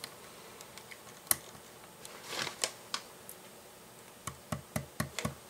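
Small plastic LEGO pieces being handled and snapped together: one sharp click about a second in, some handling noise midway, then a quick run of small clicks near the end.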